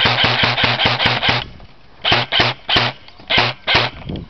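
Airsoft MP5 firing a full-auto burst of about seven shots a second over a steady motor hum, cut off about a second and a half in. Five single shots follow in the second half.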